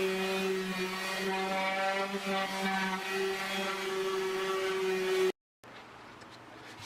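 Steady buzzing motor hum that cuts off abruptly about five seconds in, followed by a fainter, different background.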